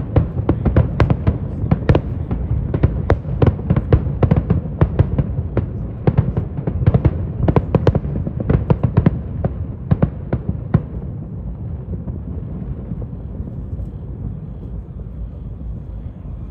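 Fireworks display bursting in a dense, rapid barrage of sharp bangs. The barrage ends about two-thirds of the way through, leaving a steady low rumble.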